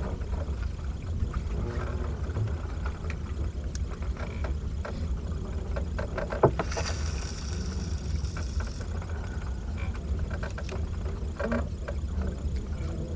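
A boat's engine running with a steady low rumble, with scattered knocks. A sharp knock comes about six seconds in, followed by a hiss lasting about two seconds.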